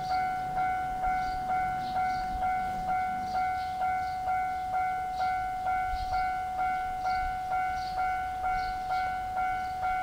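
Japanese railway level crossing alarm ringing in a steady, even rhythm of about two dings a second, warning of an approaching train as the barrier comes down.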